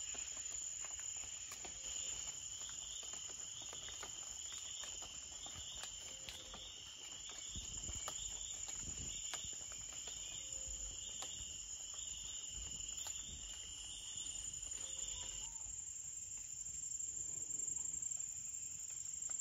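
Rainforest insects calling: a steady high-pitched buzz, with a second insect's pulsing chirp repeating rapidly over it that stops about three-quarters of the way through.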